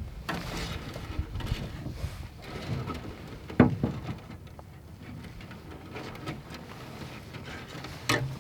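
Scattered small knocks and handling noises over a low steady rumble, with two sharper knocks, the louder one about three and a half seconds in and another near the end.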